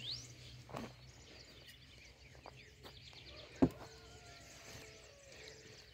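Birds chirping and trilling in the background, with one sharp knock a little past halfway.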